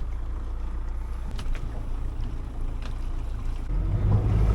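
A boat's engine running steadily at low revs, growing louder near the end, with a few small clicks over it.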